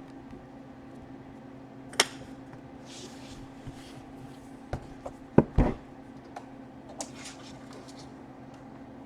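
Sharp clicks and knocks of laptop parts and tools being handled on a workbench, the loudest pair about halfway through, with a few short scraping sounds, over a steady low hum.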